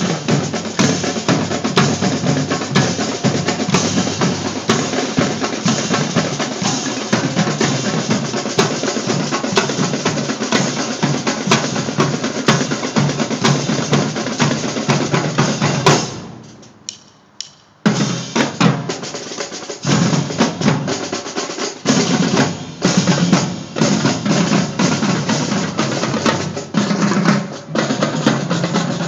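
Marching drumline of snare and bass drums playing together in dense, fast patterns. The playing cuts off sharply about halfway through, leaves a brief near-quiet gap, then starts again with short breaks between phrases.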